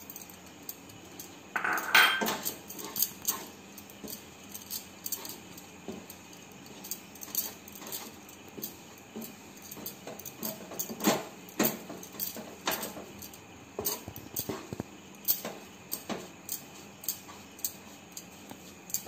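Wooden spatula scraping and tapping in a granite-coated nonstick kadai as thick milk-powder and ground-pistachio batter is stirred, in irregular short scrapes and knocks, with a louder clatter about two seconds in.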